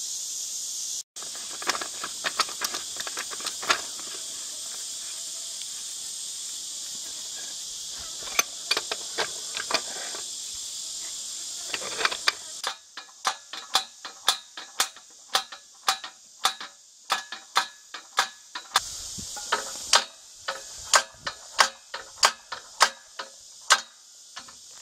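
A steady high insect drone with scattered sharp metal clicks. About halfway through the drone stops and the clicks come about twice a second, metal on metal as pipe wrenches work a threaded coupling on the well's drop pipe.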